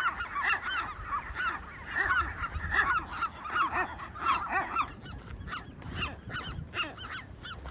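Many western gulls in a breeding colony calling at once, a dense chorus of short, overlapping squawks. The chorus is thickest for the first five seconds, then thins to fewer calls.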